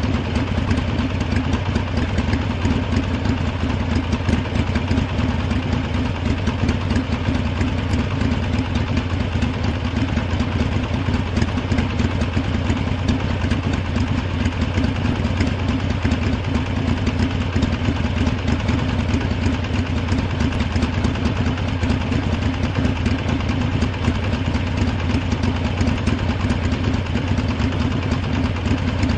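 Harley-Davidson motorcycle's V-twin engine idling steadily, with a fast, even pulsing beat.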